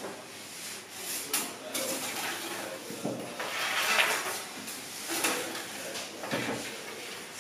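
Irregular wooden scraping and knocking as bakery equipment is slid and set down, with several longer scrapes, the loudest about four seconds in.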